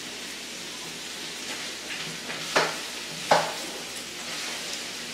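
Steady frying sizzle from a pan of chicken heating on the stove, with two sharp clicks a little under a second apart midway through.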